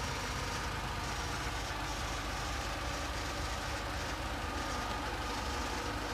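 Steady running noise of a parked car at idle with its heater blower on, an even hum and rush with a faint steady whine and no changes.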